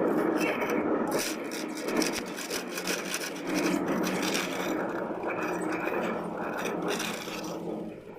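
A plastering tool scraping and rubbing over sand-and-cement plaster in a continuous rasping stroke after stroke, as the plaster is worked and smoothed on a concrete slab.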